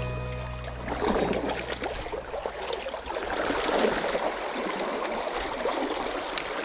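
Water of a small mountain stream rushing and splashing over rocks. Background music fades out in the first second, and there is a sharp click near the end.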